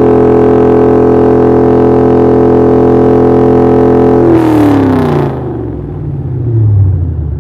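Car engine revving while parked: held at a steady high rpm, then released about four seconds in so the revs fall quickly back toward idle, with a small blip of the throttle near the end. It is a held-rpm rev test being datalogged for a tune.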